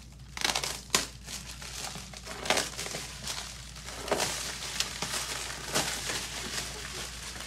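Black plastic stretch wrap being pulled and torn off by hand, crinkling in irregular rustles with sharp crackles every second or two.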